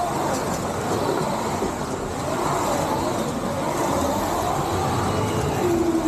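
Electric slot car motors whining around the track, their pitch rising and falling as the cars speed up and slow down, over a steady rushing noise.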